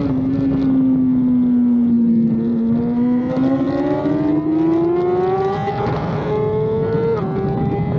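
BMW S1000RR superbike's inline-four engine at racing speed, revs easing off briefly and then climbing steadily under hard acceleration. Near the end its pitch steps down sharply once and then holds high.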